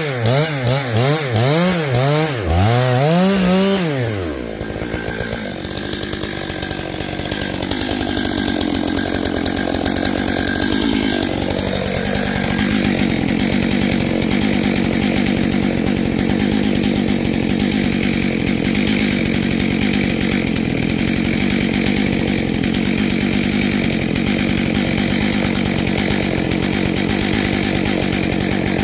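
Stihl MS661 C two-stroke chainsaw revving up and down about once a second for the first few seconds. It then settles into a steady high-speed run as it cuts through a large oak log.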